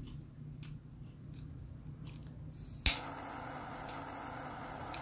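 Butane jet-flame (torch) cigar lighter being lit. After a few small handling clicks, gas starts hissing, a sharp piezo ignition click comes about three seconds in, and the jet flame then burns with a steady hiss.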